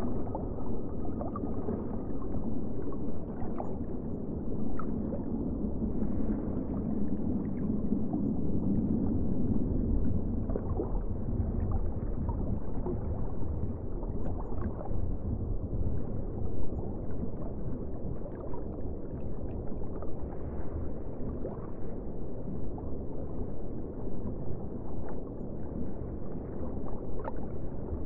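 Underwater ocean ambience: a dense, muffled low rumble of moving water, swelling a little in the first third, with scattered small clicks and ticks through it.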